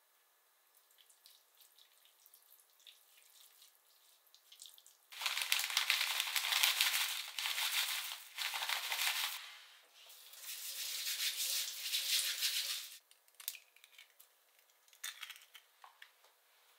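Dried hijiki seaweed shaken out of its plastic bag into a stainless mesh strainer: a dense rustle and dry patter in two long spells with a short break between them.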